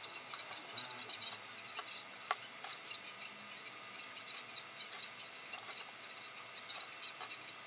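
Faint handling noise from a plastic 3D-printed gear being pressed and shifted on a piece of card on a wooden workbench: scattered small ticks and clicks, with one sharper click about two seconds in, over a faint hiss.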